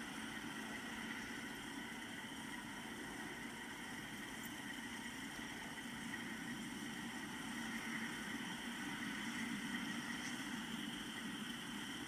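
A car running steadily, a low even hum heard from inside the cabin.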